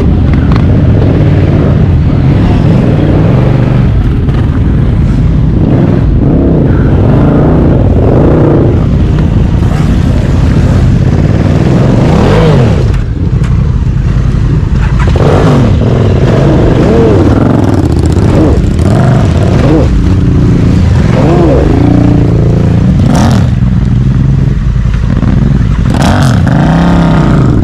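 Honda Africa Twin CRF1100's parallel-twin engine riding off-road, revving up and easing off again and again so that its pitch keeps rising and falling.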